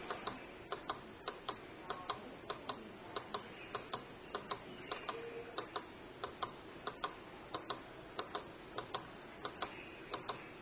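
A steady rhythm of sharp clicks in pairs, about three pairs every two seconds, over faint hiss.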